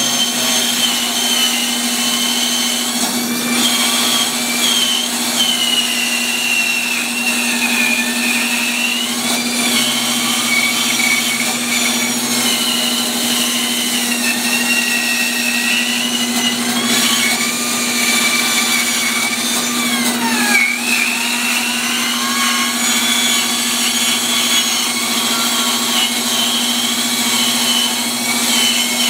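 Bandsaw running and cutting through a thick chestnut slab: a steady motor hum under a high whine from the blade that wavers up and down as the wood is fed. The blade is one the sawyers call dull.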